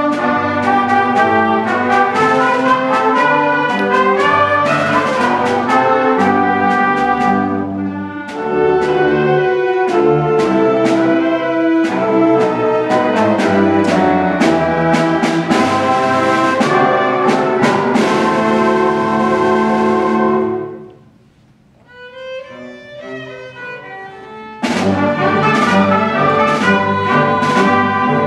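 School orchestra of strings, woodwinds and brass playing a lively piece with brass prominent and regularly accented beats. After about twenty seconds the music falls away to a short soft passage, then the full ensemble comes back in loudly near the end.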